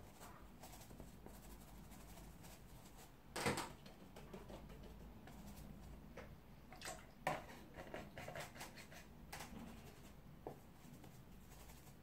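Watercolour brush dabbing and scrubbing paint in a handheld palette: faint scattered taps and clicks, the loudest a short scrape about three and a half seconds in.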